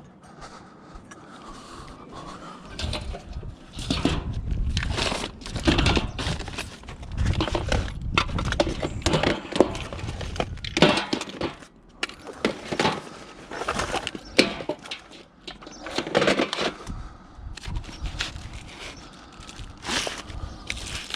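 Scrap metal being gathered by hand and dropped, with irregular clanks and clatters of metal pieces knocking together.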